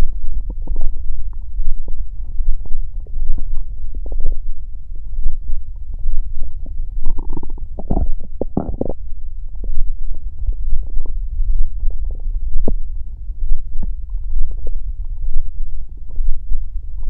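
A person's stomach growling and gurgling: a continuous deep rumble with scattered bubbling gurgles, and a louder run of gurgles about halfway through.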